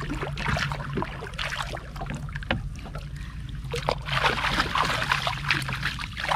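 Gill net being pulled aboard a small boat: water splashing and dripping in irregular bursts, busiest about four to five and a half seconds in, over a steady low hum.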